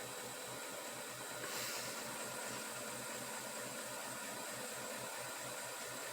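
Steady faint hiss of outdoor background noise with a low, evenly pulsing hum underneath, and a brief louder rush about a second and a half in.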